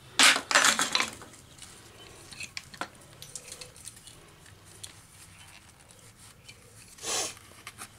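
Metal clinks and clatter from an automotive electric cooling-fan motor being handled in its plastic shroud: a quick run of sharp strikes in the first second, then light ticks and taps, and a short rustle about seven seconds in.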